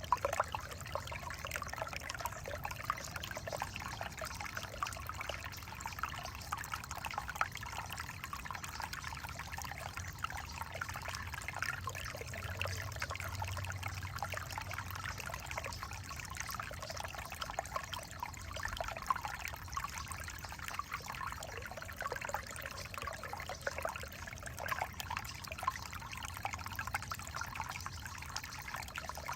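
Creek water trickling steadily, a continuous stream of small splashes.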